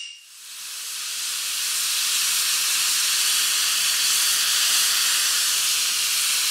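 A steady, loud hiss, all high and airy with no low end. It fades in over the first two seconds and then holds even.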